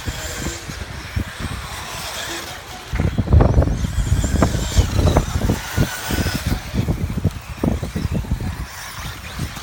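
Electric off-road RC buggies racing on a dirt track: faint high motor whine over a run of irregular low thumps.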